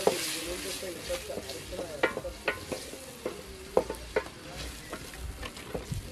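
Food sizzling in an aluminium saucepan as a wooden stick stirs it, knocking against the pot several times.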